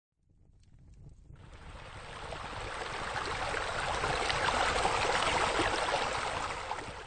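Splashing, rushing water of a pool bubbler jet on the tanning ledge. It fades in over the first few seconds, is loudest in the second half, and fades out at the end.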